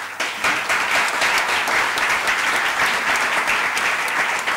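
Audience applauding: a full round of clapping from a seated crowd that breaks out at once and holds steady.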